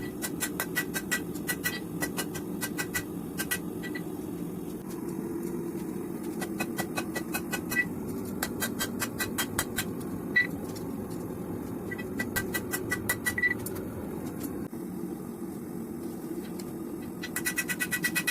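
Rapid, evenly spaced hammer blows on hot steel at the anvil, about four a second, each with a bright ring, as a canister billet is forged out into a knife. The blows stop twice for a few seconds and pick up again near the end, over a steady low rush.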